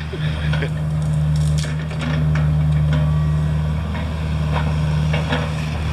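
Engine of a land-clearing machine running steadily under load while brush and wood crackle and snap as they are crushed.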